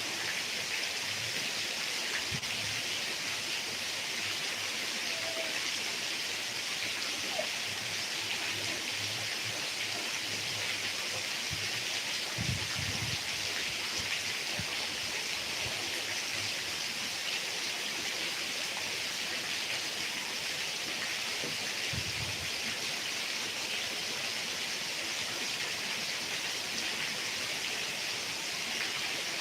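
Heavy rain falling steadily, an even hiss throughout, with two brief low rumbles about halfway through and again later on.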